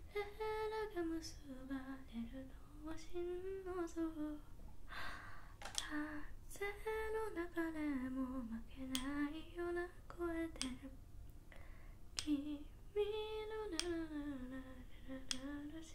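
A girl humming a slow melody in long, gently rising and falling phrases, with sharp clicks now and then from two sticks of blackboard chalk knocked and rubbed against each other.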